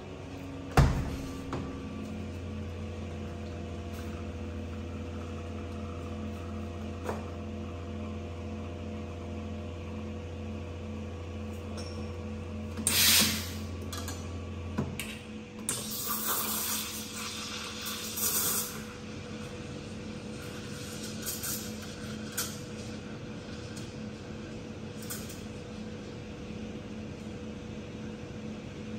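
Espresso machine pump humming steadily while a shot is pulled, stopping about halfway through, with a sharp click near the start. Then a short blast of steam and a few seconds of the steam wand hissing as milk is steamed in a pitcher, with smaller hisses after.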